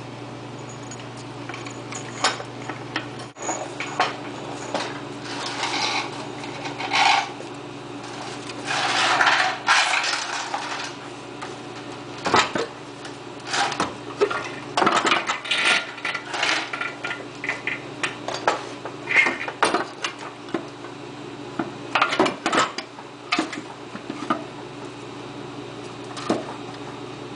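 Irregular metal clanks, knocks and scrapes as a manual transmission case, resting on a floor jack, is shifted and worked up into line with the engine, over a steady low hum.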